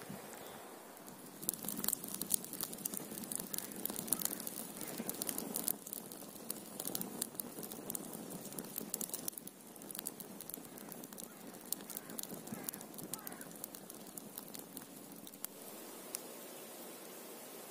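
Wood campfire crackling, with many sharp pops and snaps, thickest in the first few seconds and sparser later.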